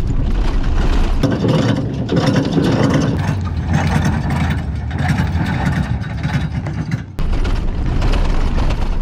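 Toyota pickup truck's engine revving hard at high throttle as its wheels spin in soft sand, trying to drive out of being stuck. The sound changes abruptly about seven seconds in.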